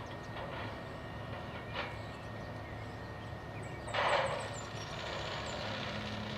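Distant wood chipper shredding cut trees, a steady low drone, with a short, louder rough burst about four seconds in.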